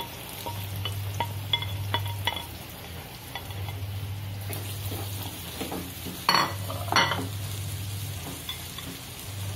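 Chopped tomatoes, onions and cashews frying in oil and butter in a nonstick kadhai, stirred with a spatula that scrapes and clicks against the pan. There are two sharper clinks about six and seven seconds in.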